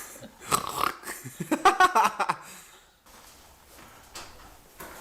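A person's loud non-word vocal noises for about two seconds, stopping abruptly about three seconds in, followed by low room tone with a few faint clicks.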